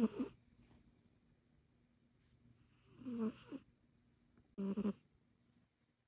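A sleeping cat snoring: three short snores, the first just ending as the sound begins, the next about three seconds in and the last about a second and a half later.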